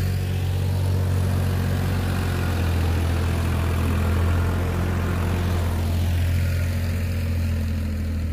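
Farmtrac tractor's diesel engine running steadily with a deep, even hum, a little louder about four seconds in.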